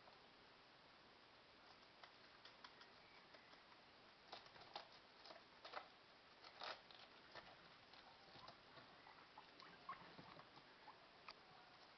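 Faint, irregular crunching clicks of guinea pigs chewing raw vegetables, busiest in the middle.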